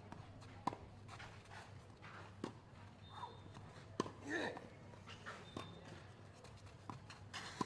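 Tennis rally: a ball struck back and forth with rackets, giving sharp hits about every one and a half seconds. A short grunt from a player comes on one shot about four seconds in.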